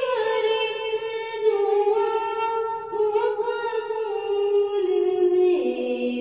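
A girl singing a hamd, an Urdu hymn in praise of God, as a solo voice. She draws out long held notes with slow ornamented turns and drops lower in pitch about five and a half seconds in.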